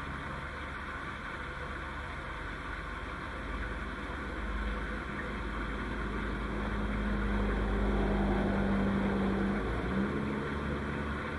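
A motor vehicle engine running out of sight: a low steady hum with a held drone that comes in a few seconds in, grows louder past the middle, and eases off near the end, like a vehicle passing.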